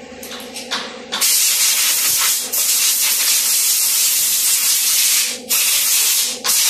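Compressed-air blow gun blasting air: one long blast of about four seconds starting about a second in, then two short blasts.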